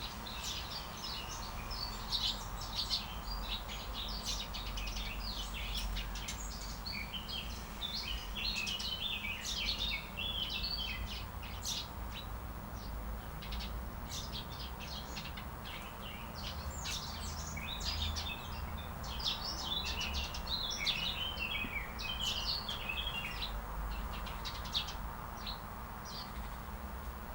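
Songbirds chirping and singing over one another in quick, high, twittering calls, with a steady low background rumble underneath.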